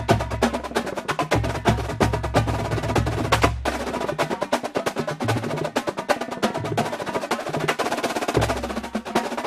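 Background music: a fast percussive track of rapid clicking beats over a pulsing bass line, the bass dropping out briefly about a third of the way in.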